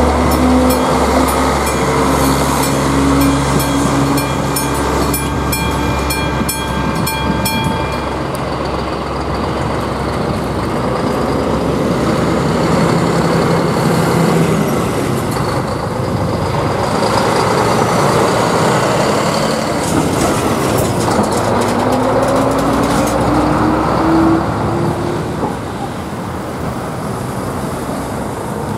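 A ČD railcar runs over the level crossing while the AŽD 71 signal's classic bell rings in quick, even strokes; the bell stops about eight seconds in as the crossing clears. Then a truck's diesel engine idles and revs up as it pulls away over the tracks.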